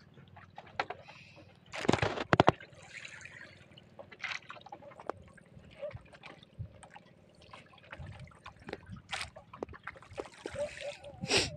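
Water splashing and dripping, with a quick cluster of sharp splashes about two seconds in and scattered smaller splashes and drips after it.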